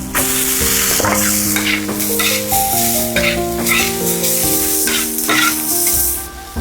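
Food sizzling as it is stir-fried, with irregular scrapes and knocks of a spatula in the pan, over background music with a clear melody.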